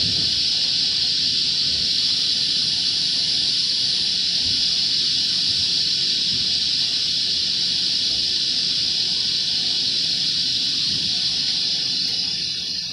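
A loud, steady hiss that fades away near the end.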